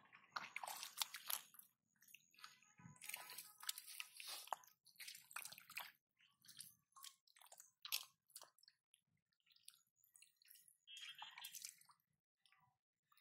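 Hands digging and groping through wet mud, making a run of irregular squelches, thick in the first half and sparser after.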